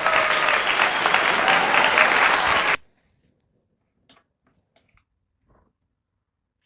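Applause, a dense patter of clapping hands, that cuts off suddenly about three seconds in. Then near quiet with a few faint ticks.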